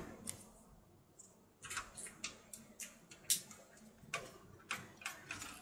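Faint, irregular light clicks and taps, about a dozen after the first second and a half, from cables and small parts being handled and tucked inside a small computer case during cable management.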